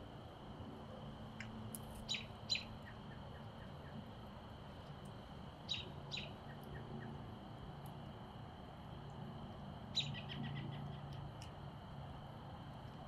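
A bird calling: pairs of short sharp chirps a couple of seconds in and again about six seconds in, then a quick run of notes about ten seconds in, over a steady high-pitched drone.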